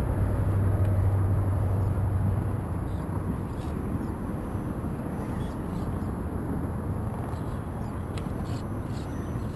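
Steady low outdoor rumble, with a low hum for the first couple of seconds and a few faint clicks in the second half.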